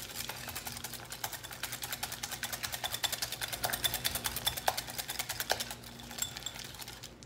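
Wire whisk beating thick homemade mayonnaise in a glass bowl, with a fast, even ticking of the wires against the glass, several strokes a second. The mayonnaise is being whisked as salt and pepper are mixed in. The whisking stops about six seconds in.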